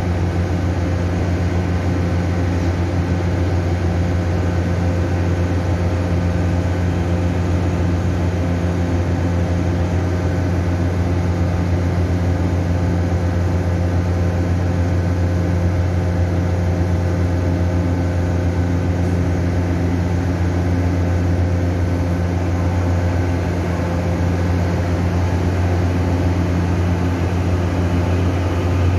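Puyuma (TEMU2000) tilting electric train standing at the platform with its onboard equipment humming steadily. Near the end it is pulling out past the platform.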